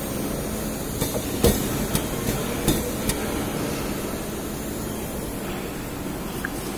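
Pad printing machine for oil caps running with a steady mechanical hiss and rumble. About six sharp clicks and knocks of its mechanism come in the first half, the loudest about a second and a half in.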